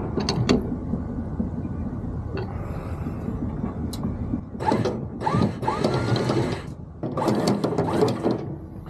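A few sharp metallic clicks as the anchor windlass clutch is tightened with its handle. Then the newly fitted electric anchor windlass runs in two bursts, about two seconds and then about a second, its motor and gears whirring, as a test after the clutch adjustment.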